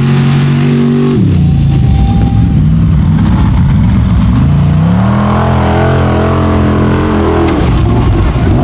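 Formula Offroad buggy's V8 engine running at high revs. It holds a steady pitch for about a second, turns rough and uneven for a few seconds, then climbs back to a steady high pitch about five seconds in and drops off near the end.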